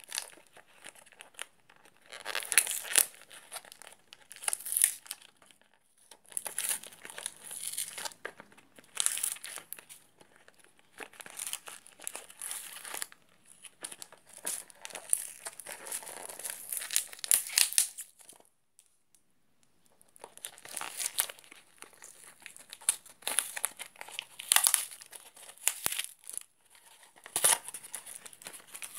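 Clear plastic packaging crinkling and tearing as it is opened by hand. It comes in irregular bursts, with a pause of about two seconds a little past the middle.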